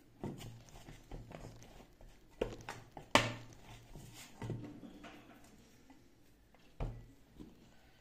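Hands working atta dough in a stainless steel mixing bowl: irregular soft thuds and knocks of dough and fingers against the metal bowl, the sharpest about three seconds in and another near the end.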